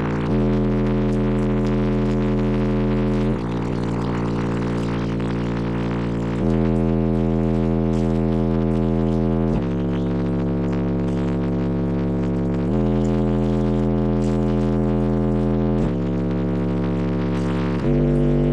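Six DC Audio Level 5 12-inch car subwoofers in a blow-through build playing a heavy bass track: long sustained bass notes that step to a new pitch about every three seconds.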